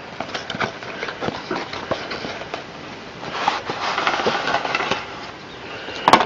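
Packaging of a model locomotive being handled as the model is taken out of its box: scattered light clicks and crinkles, a longer rustle about three to five seconds in, and one sharp click near the end.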